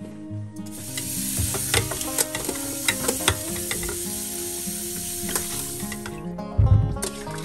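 Kitchen tap running into a plastic bowl as cherry tomatoes are rinsed by hand, with small knocks of tomatoes against the bowl. The water starts about half a second in and stops about six seconds in.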